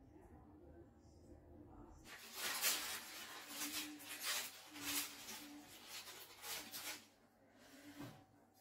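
Crisp baked filo crust and baking paper crackling and rustling as pieces of gibanica are cut and lifted off the tray: a run of crunchy rustles starting about two seconds in and stopping a second or so before the end.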